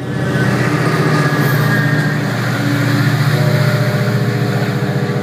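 Diesel locomotive of an ACE commuter train running under power as it passes and pulls away, a deep pulsing engine drone with a steady set of engine tones and rail noise, easing slightly near the end as it draws off.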